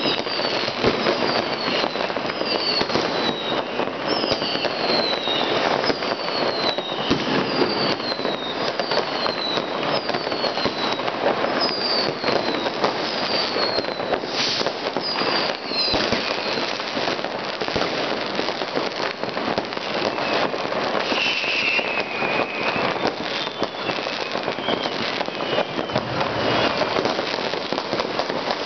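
New Year's Eve fireworks and firecrackers going off in a dense, continuous crackle of bangs. Through the first half, short whistles fall in pitch about once a second.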